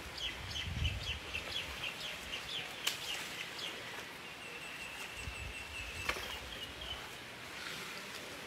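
Steady rain hiss with a small bird calling over it: a run of quick repeated chirps in the first few seconds, then a steadier trill in the middle.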